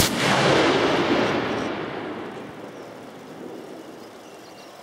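A single .50 BMG rifle shot from a Steyr HS 50-M1 fitted with a Barrett M95/M99 muzzle brake: one sharp blast at the very start, followed by a long echoing tail that fades away over about three seconds.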